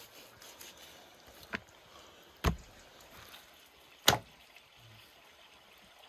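Knife work on a wooden cutting board: a light tap about one and a half seconds in, then a heavy thump and a sharp knock about a second and a half apart.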